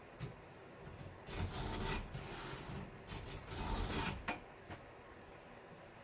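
A hand file scraping across the cutters of a Stihl chainsaw chain during sharpening: several strokes, the longest about a second and a half in and around four seconds, with a few light clicks between them.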